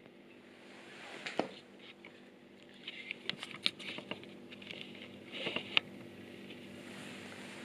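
Scattered light clicks and taps: a couple about a second in, a quick cluster around three to four seconds in, and a few more near six seconds, over a faint steady hum.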